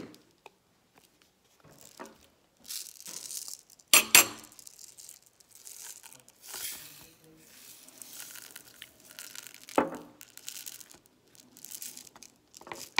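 Sprinkles rattling and pouring out of a plastic shaker jar, with handling rustle and a few sharp knocks, the loudest about four seconds in and another near ten seconds.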